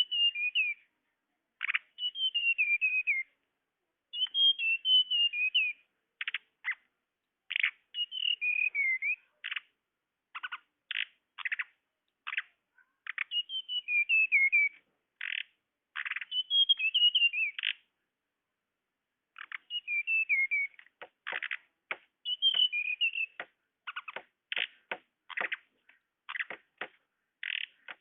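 Lure call of a tledekan (flowerpecker): sharp, high single ticks alternating with short twittering phrases that fall in pitch, repeated over and over with abrupt silent gaps between them.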